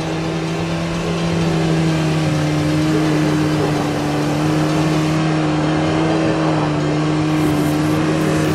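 An off-road vehicle's engine held at high, steady revs under load, its pitch rising slightly at first and then staying level, over a loud rushing noise.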